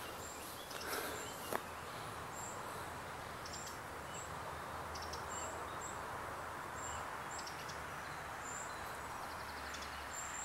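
Countryside ambience: a steady hiss with a small bird's short, high chirps repeating about once a second and a few quick trills.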